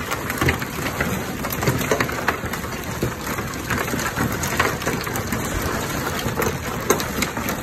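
Live blue crabs being shaken out of a plastic crate onto a sorting table: a dense, steady clatter of shells and legs clicking and scrabbling against the table and crate, with sharper knocks now and then.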